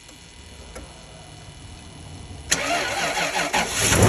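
Toyota 2UZ-FE V8 engine starting: quiet at first, then cranking and catching about two and a half seconds in, and running loudly after that.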